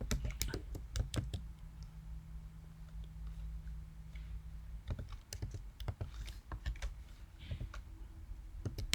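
Typing on a computer keyboard: a quick run of keystrokes in the first second or so, then scattered keystrokes in short bursts.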